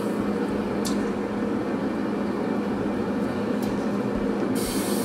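Pit Boss pellet grill running at cooking temperature, its fan giving a steady whir, with a single click about a second in and a brighter hiss near the end.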